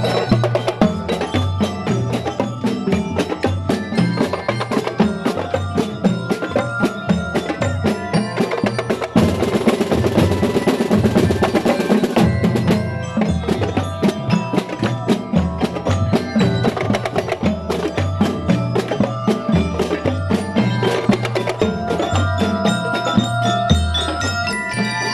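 Drum and lyre corps playing: snare and tenor drums beating a fast, steady marching rhythm under bell lyres ringing out a melody. A hissing wash rises over the drums for a few seconds near the middle.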